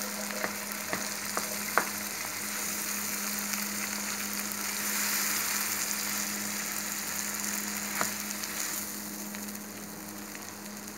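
Mashed potatoes and tomato masala sizzling in hot oil in a nonstick wok while being stirred, the spatula tapping and scraping the pan a few times in the first two seconds and once more near the end. A steady low hum sits underneath.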